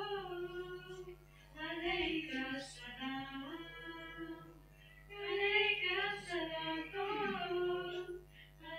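Female voices singing an Urdu nazm, a devotional poem sung in Urdu, with no audible instruments. The singing comes in three phrases with short breaks, the longest break near the middle.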